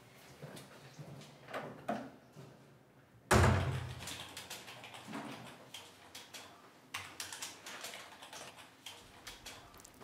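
A door shutting with a single heavy thump about three seconds in. From about seven seconds on come light, scattered clicks of typing on a computer keyboard.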